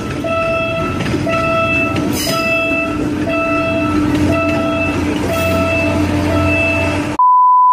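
Commuter train of 203-series coaches passing close by, a steady rumble of wheels and running gear that grows heavier about halfway through. Over it a pitched level-crossing warning alarm beeps about once a second. Near the end everything cuts to a single steady electronic beep lasting about half a second.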